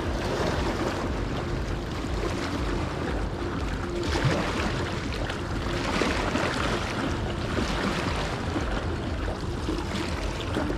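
Steady wind and water noise, heaviest at the bottom end, with a faint hum that comes and goes.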